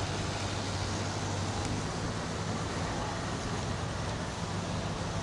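Steady road-vehicle noise: a constant low engine hum under an even hiss.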